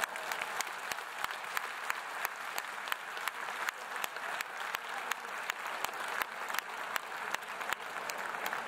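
Stadium crowd applauding, with many individual claps standing out sharply over the steady clapping.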